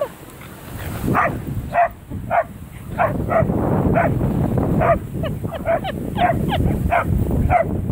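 Dogs barking and yipping in rough play: a quick run of short barks, about two a second, starting about a second in.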